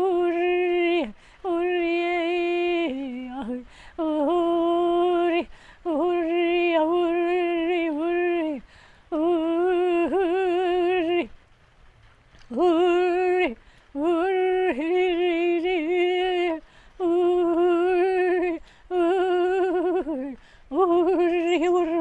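A woman's prayerful groaning ('groaning in the Spirit'): a run of drawn-out hummed moans held on much the same note, each one to three seconds long with short breaths between, and a longer pause about eleven seconds in.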